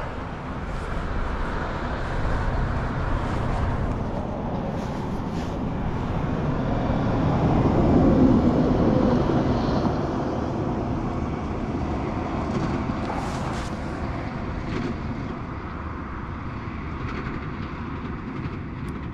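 Road traffic going by, with one vehicle passing that swells to its loudest about eight seconds in and then fades away.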